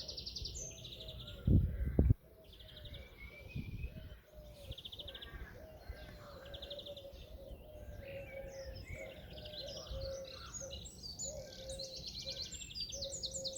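A chorus of garden birds singing at once, with repeated high, fast trills over other warbling phrases. A couple of loud, low thumps come through about a second and a half in.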